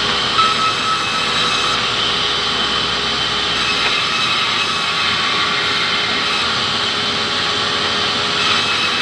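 Sawmill band saw running steadily while a hardwood plank is ripped through it. A loud, even whine from blade and motor continues without break.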